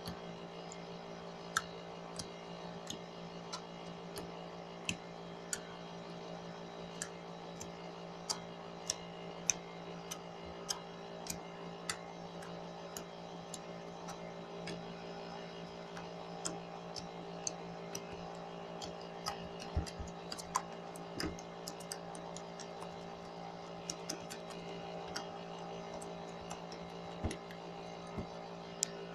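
Homemade glue slime, set with baking soda and contact solution, being squeezed and poked by hand and giving off sharp little clicks at irregular spacing, about one or two a second, over a steady faint hum. This clicking is what makes it "clicky slime".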